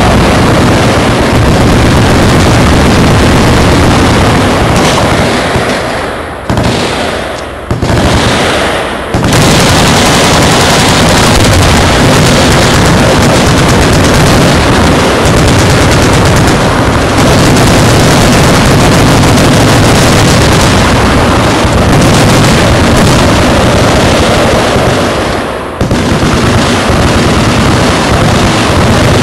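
Many machine guns firing at once in continuous, overlapping automatic fire, loud enough to push the recording to its limit. The firing drops briefly about six and a half, seven and a half and nine seconds in, and again near the end.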